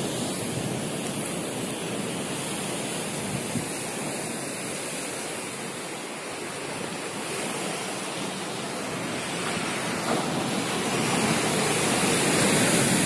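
Ocean surf breaking on a rocky shore below, a steady rushing noise mixed with wind on the microphone, growing louder near the end.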